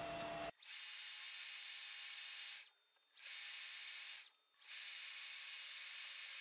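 Milling machine spindle turning a small number 8 twist drill as it bores a deep hole into a metal plate: a steady high whine that breaks off briefly twice.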